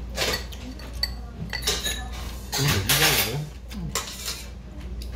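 Metal chopsticks and spoons clicking against ceramic plates and a stainless bowl, a series of light clinks, with a short voice sound about halfway through.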